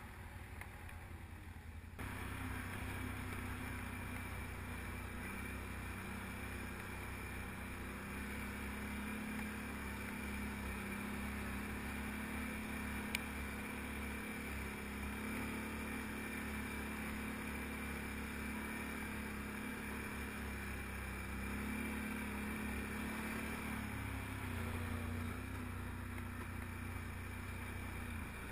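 Can-Am ATV's 1000 cc V-twin engine running at low, fairly steady revs while riding, its pitch rising and falling a little. It is quieter for the first two seconds, and there is a single click about halfway through.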